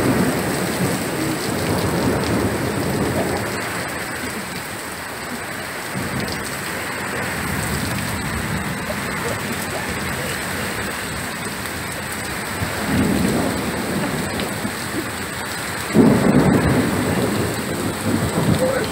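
Thunderstorm: steady rain with rolls of thunder, rumbling at the start and again partway through, and a louder clap breaking in about three-quarters of the way through.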